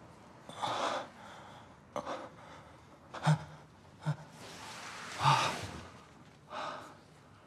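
A young man gasping and moaning in pleasure: sharp breaths in quick succession, some with a short low moan, the longest and loudest about five seconds in.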